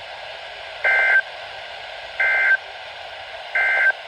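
EAS end-of-message data bursts on NOAA Weather Radio: three short two-tone digital warbles about a second and a half apart, over steady receiver hiss, marking the end of the warning broadcast.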